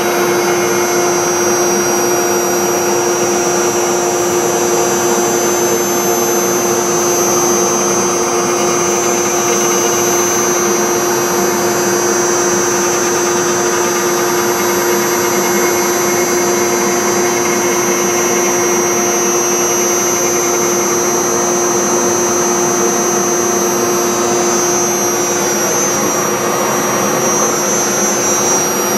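Spindle of a 5-axis Legacy CNC router running steadily while its V-bit carves grooves into a poplar block, a steady high whine and a lower hum over the noise of the cut.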